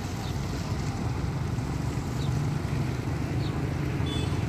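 Road traffic running steadily: the diesel engine of a semi-truck hauling a crane on a low trailer, with motorbikes passing close by.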